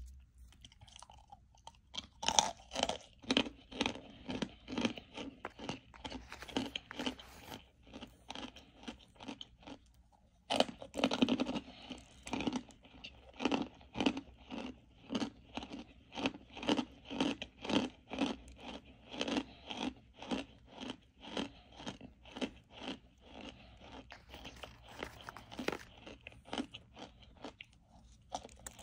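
Close-miked chewing of home-baked cornstarch chunks, a steady run of crisp crunches about twice a second. A loud fresh bite comes about ten and a half seconds in.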